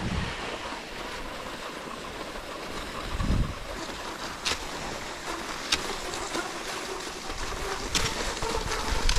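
Cross-country skis gliding along a groomed snow track, a steady hiss with wind buffeting the microphone now and then. A few sharp clicks stand out, about halfway through and near the end.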